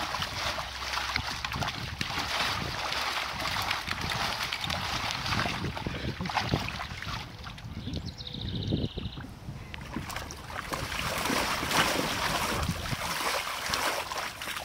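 Dog pawing and splashing water in a plastic kiddie pool. The splashing eases for a few seconds midway, then picks up again.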